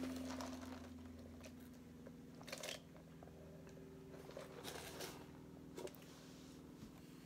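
Quiet mukbang eating and drinking noises: a sip from a lidded plastic fast-food cup, then a few short crunches and rustles, over a steady low hum.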